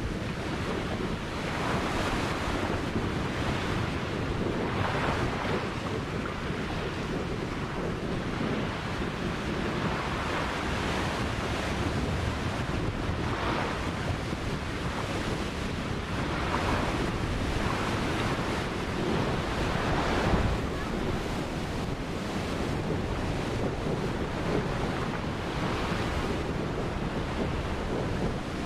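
Ocean surf breaking and washing on the shore, a continuous roar with a wave cresting every few seconds, over a low rumble that sounds like wind on the microphone.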